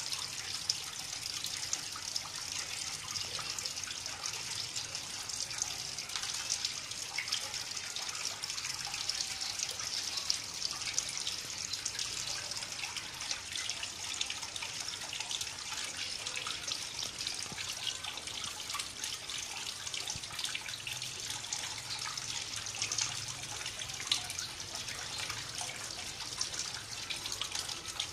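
Water from a tilted clay pot trickling and splashing down over stacked stones into a small basin of a homemade garden fountain. It makes a steady, even splashing sound, dotted with many small drips.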